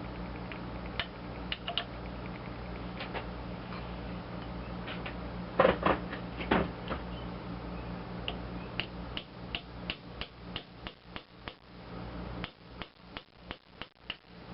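Small metal parts being tapped and clicked on a switch: a couple of louder knocks about six seconds in, then a run of quick sharp taps, two to three a second, as a switch terminal is driven down into its seat. A steady low hum runs underneath.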